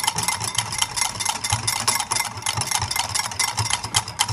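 A wire whisk beating instant coffee, sugar and hot water by hand in a glass bowl. The strokes are rapid and even, the wires click against the glass, and the bowl rings faintly.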